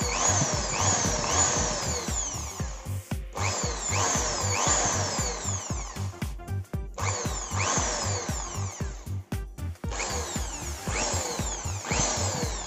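Repaired iBell ID1380 impact drill's motor running off the trigger in several bursts with brief breaks between them, over background music with a steady beat. It runs much smoother now that its stator is damped with foam tape and no longer grinds against the housing.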